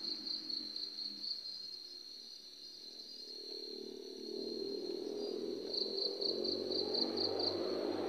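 Night insects, crickets, trilling steadily at a high pitch, the trill breaking into quick even pulses near the end. A low noise grows louder from about halfway through.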